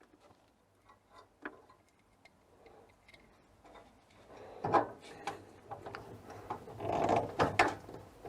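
Small clicks, knocks and rattles of plastic and metal parts being handled while a ground wire is fitted to a refrigerator's evaporator fan motor assembly. It starts sparse and gets busier and louder in the second half.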